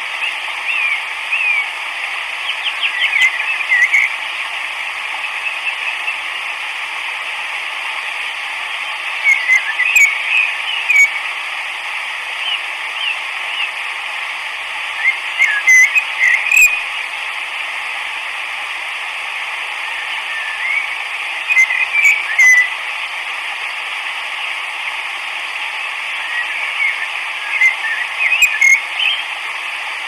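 Bursts of high, curling chirps about every six seconds over a steady hiss.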